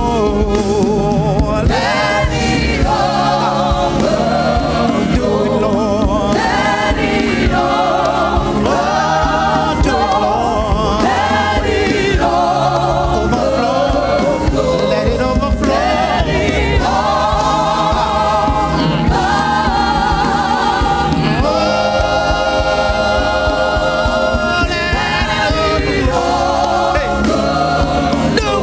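Gospel choir singing long, wavering held notes over a steady band accompaniment.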